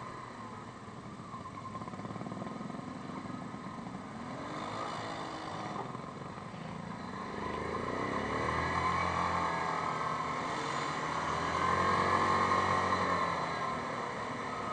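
Yamaha Grizzly 550 ATV's single-cylinder engine running under way, picking up revs about four seconds in and again just before eight seconds, louder through the second half.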